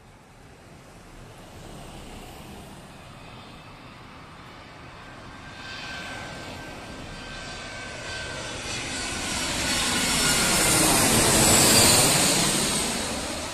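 Jet engines of an Airbus A320-family airliner on final approach with its gear down, growing steadily louder with a whining note as it comes in. The sound peaks about twelve seconds in as the aircraft passes low overhead, then the pitch drops as it moves away and begins to fade.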